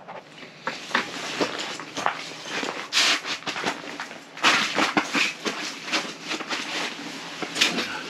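Boots crunching and scuffing on slushy ice in irregular steps, with the rustle of a nylon winter suit, as a person walks across an ice fishing shelter floor and sits down.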